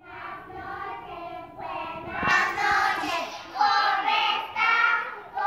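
A group of young children singing together, getting louder about two seconds in.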